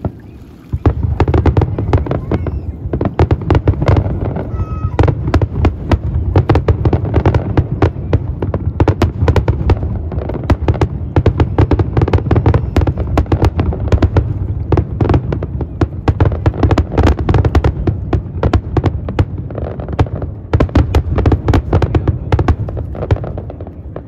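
Fireworks display at full barrage: many sharp cracks and bangs in quick succession over a deep booming rumble. It starts about a second in and dies down near the end.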